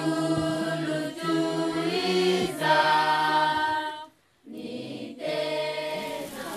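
A church choir singing a hymn in long held notes, with a brief break about four seconds in.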